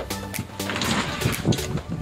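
Background music, with cardboard scraping and rustling in the middle as a packing insert is pulled out of a large box.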